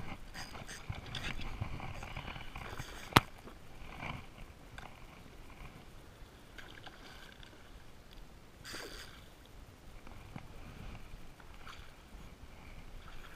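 Spinning rod and reel handled on a plastic kayak while a hooked redfish pulls: scattered knocks and rustles, with one sharp click about three seconds in.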